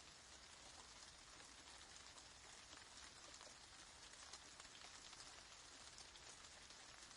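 Steady rain falling, heard faintly as a dense, even patter of many small drops.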